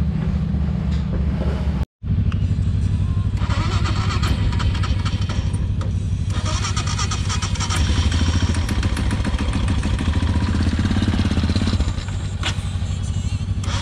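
Royal Enfield Himalayan 411's single-cylinder engine idling steadily.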